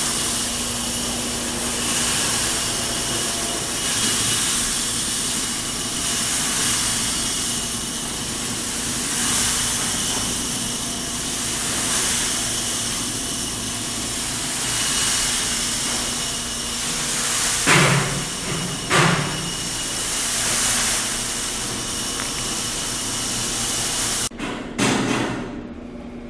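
Probat G75 drum coffee roaster running: a steady rush of air from its fans with a constant low hum. Two sharp knocks come about eighteen and nineteen seconds in, and the rushing noise drops off abruptly near the end.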